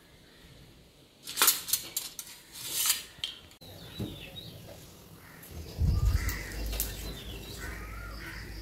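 Steel dishes and utensils clinking and clattering against one another, loudest between about one and three and a half seconds in. After that come faint bird chirps and, from about six seconds in, a low steady rumble.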